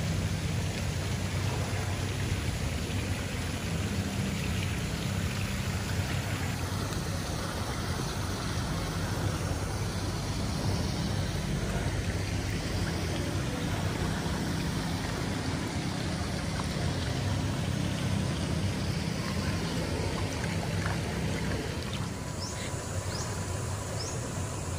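Pool water sloshing and trickling close to the microphone, a steady wash of water noise.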